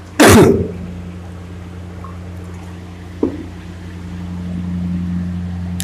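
A steady low electrical-sounding hum, with one brief loud sound about a quarter of a second in and a small click a little after three seconds.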